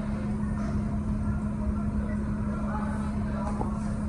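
A New York City subway train standing at the terminal platform: a steady low hum with one constant tone.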